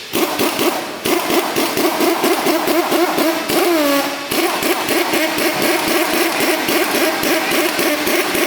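An engine running with a rapid, uneven clatter. It comes in abruptly and dips briefly twice.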